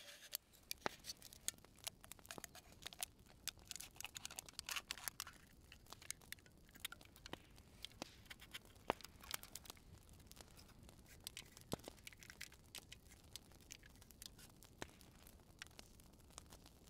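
Faint clicks, scrapes and crinkles of a knife and a pointed tool cutting and piercing a thin aluminium drink can, the bursts busiest in the first few seconds.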